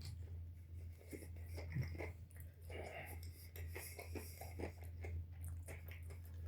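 A person chewing a bite of a fried chicken sandwich on a bread bun, with irregular soft mouth clicks and smacks over a steady low hum.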